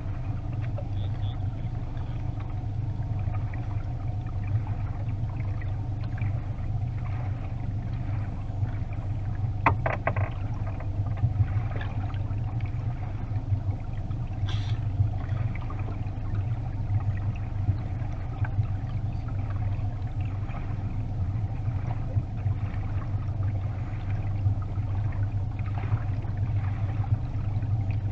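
Boat motor running at a steady speed, a constant low hum, with a few brief knocks and clatters from gear being handled on the deck.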